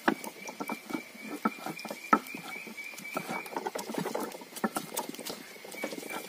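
Stone roller grinding cumin and dried red chillies on a flat stone slab (sil-batta): irregular gritty scraping and knocking strokes of stone on stone, with a sharper knock about two seconds in.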